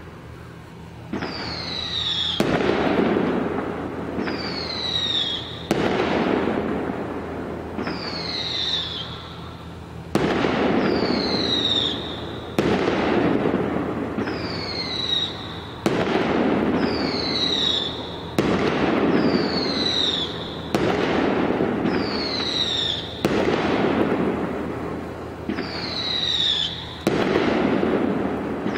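Fireworks going off in a steady series, about a dozen shots roughly two seconds apart, each with a sharp crack, a short falling whistle and a hiss lasting a couple of seconds.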